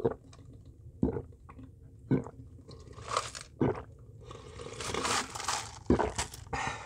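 Gulping swallows of an iced green grape drink from a plastic cup, short thuds about a second apart, broken by crunching and rattling of ice cubes in the mouth and cup.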